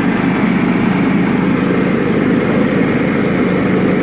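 A John Deere LT155's single-cylinder Kohler Command engine running steadily under the load of mowing with the deck engaged. It holds its speed without bogging down, a sign that it is pulling the load easily.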